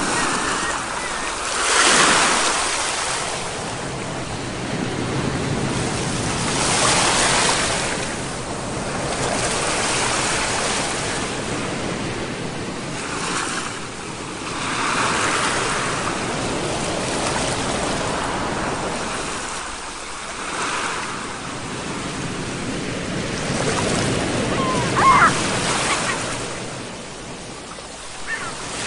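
Ocean surf breaking and washing on a shore, swelling and ebbing in waves every few seconds. A brief high squeak sounds about 25 seconds in.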